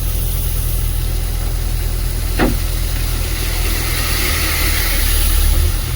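Excavator's diesel engine running steadily during loading work, with a brief high squeak about two and a half seconds in.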